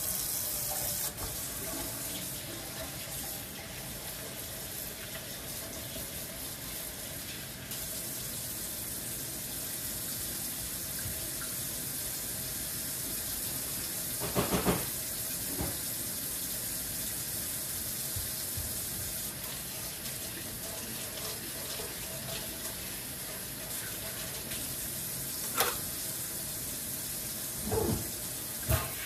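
Kitchen faucet running steadily into a stainless steel sink, with a few short knocks and clatters about halfway through and near the end.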